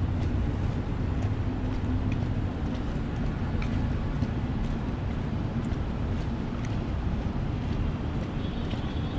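Steady city ambience: a low rumble of street traffic mixed with wind on the microphone, with scattered faint ticks.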